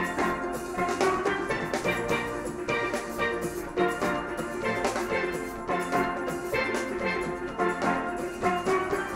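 Steel orchestra playing: many steelpans sounding bright ringing notes over a steady drum rhythm.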